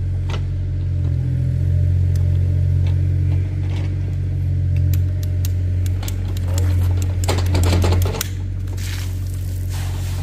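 An engine idling steadily with a low drone. Knocks and clicks of PVC drop pipe being handled sit on top of it, with a short scraping rustle near the end.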